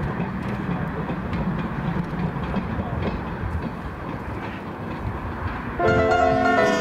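Small sail-driven rail wagon rolling along narrow-gauge track, its wheels running on the rails with a steady rumble and faint clicks. Music comes in near the end.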